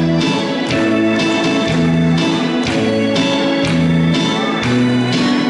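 Instrumental introduction of a Korean ballad backing track played over stage speakers: guitar and sustained keyboard notes over a steady beat.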